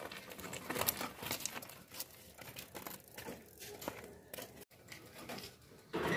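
Loose gravel crunching and crackling in quick irregular clicks under bicycle tyres and footsteps.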